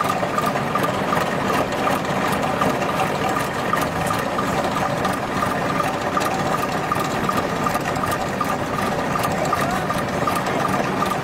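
Engine of a tracked rice-harvesting machine running steadily at idle, with a fast, even clatter.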